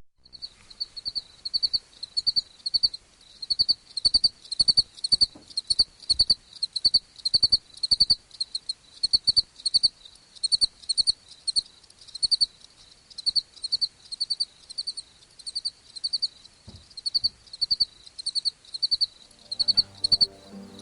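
High, short chirps, each a quick pulsed trill, repeating evenly about twice a second. Soft background music fades in near the end.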